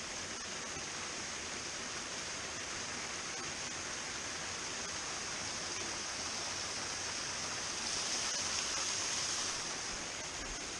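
Small rocky stream splashing and rushing steadily over little cascades between boulders, getting a little louder for a moment about eight seconds in.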